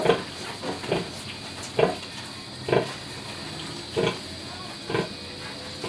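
Nursing sow grunting in a steady rhythm, a short low grunt about once a second, as her piglets suckle. This is the rhythmic nursing call a sow gives during a feed.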